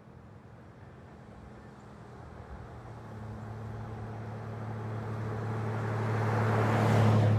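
Nissan Frontier pickup truck driving up and passing close by: a steady engine hum with tyre and road noise, growing steadily louder and loudest near the end as it goes past.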